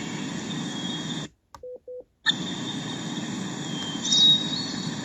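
Small sound-machine speaker playing a nature-sound track: a steady rushing noise with bird calls sliding in pitch over it. About a second in it cuts off, two short beeps sound as the track is switched, and a similar nature track with bird calls starts again.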